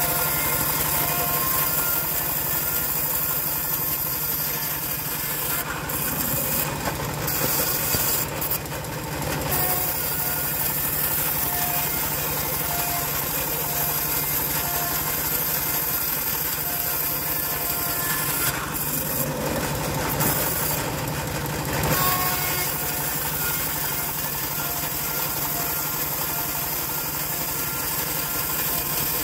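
Homemade bandsaw mill running steadily while its blade rips a dry acacia plank lengthwise, a constant machine hum under the cutting noise. The cutting noise swells louder twice, a few seconds in and again about two-thirds of the way through.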